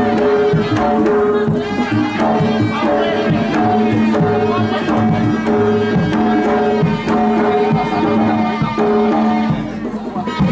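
Javanese jaranan ensemble music: hand drums (kendang) beating a busy, steady rhythm under a long-held, wavering wind-instrument melody.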